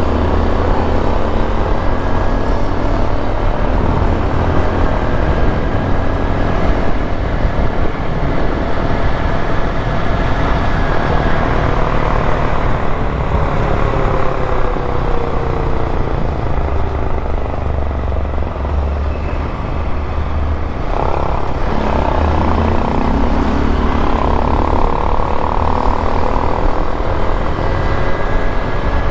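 Honda XRE 190's single-cylinder engine running while the motorcycle is ridden, its pitch slowly rising and falling as the revs change, over a steady low rumble.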